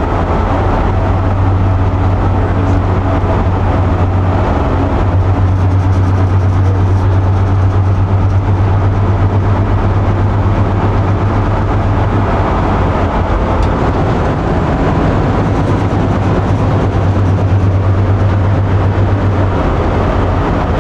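Chevy Astro van cruising at highway speed, heard from the bare rear cargo area: steady road and driveline noise with a strong low drone that drops out briefly a few times. The owner blames the drone on a failing rear differential that has shed metal shards into its oil.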